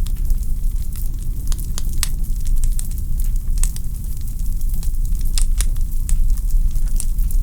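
Wood fire burning in a fireplace: logs crackling with irregular sharp pops and snaps, several a second, over a steady low rumble.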